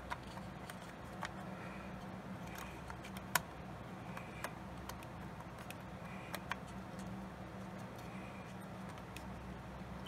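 Small scattered clicks and taps of a Samsung 8 GB laptop memory module (SO-DIMM) being worked back into its slot, with a sharper click about three seconds in and a loud snap near the end as it seats.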